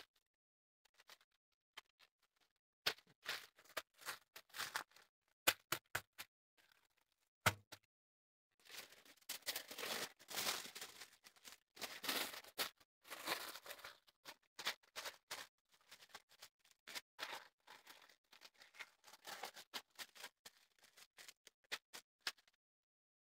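Aluminium foil crinkling and crackling as it is folded and crimped tightly around a rack of pork ribs. A few separate sharp snaps come first, then a dense stretch of continuous crinkling in the middle, then scattered crackles that stop shortly before the end.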